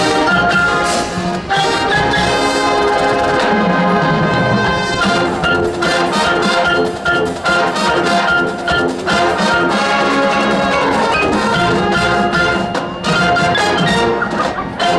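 High school marching band playing: loud brass chords from trumpets and trombones over drums and percussion, with a few short breaks in the phrasing.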